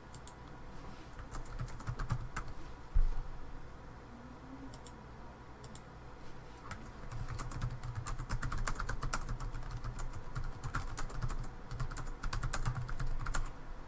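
Typing on a computer keyboard: scattered key clicks at first, then a fast, steady run of keystrokes from about seven seconds in. A single low thump comes about three seconds in.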